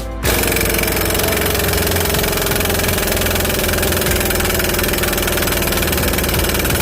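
A motor running steadily, its pitch sagging slightly over several seconds. It cuts in abruptly just after the start.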